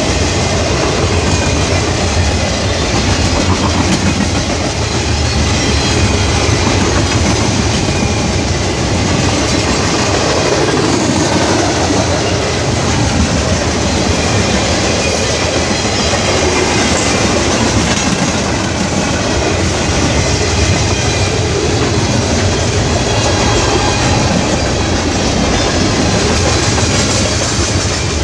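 A train passing close by, its cars rolling steadily over the rails at a constant loud level.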